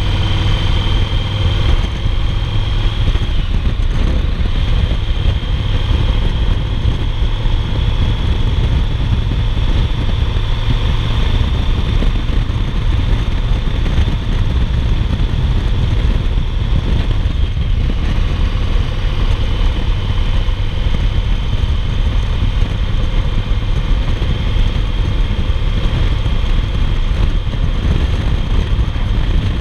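2008 Yamaha Roadliner's V-twin engine running steadily at cruising speed, under a constant rush of wind noise.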